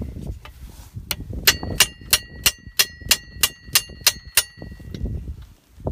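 Hammer tapping a steel cross pin into the climbing mechanism of a Hi-Lift farm jack: about eleven light, ringing metal-on-metal strikes, roughly three a second, starting about a second in and stopping about a second before the end.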